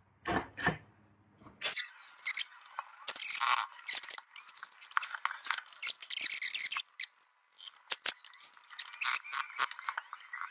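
Two quick knocks as the aluminium screen-printing frame is handled, then a long stretch of crackly rustling and scraping with many small ticks from handling the print paper and the squeegee on the screen.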